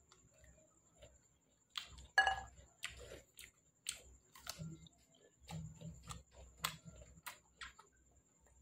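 Close-miked wet chewing and lip-smacking of soft, ripe jackfruit flesh: a quiet start, then an irregular run of moist smacks and clicks from about two seconds in, the loudest early in the run.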